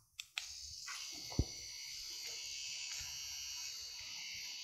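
Wireless Defenderr Vector permanent-makeup pen machine, set to a 3.6 mm needle stroke, switched on with a couple of clicks and then running with a steady high-pitched whir. A single sharp knock about a second and a half in.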